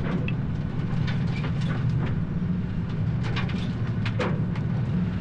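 Steady low drone of a crab boat's engine heard inside the wheelhouse, with scattered rattles and knocks through it.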